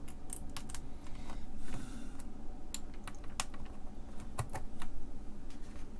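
Irregular light clicks and taps, a few a second, as 2102 RAM chips are handled and pressed into DIP sockets on a circuit board.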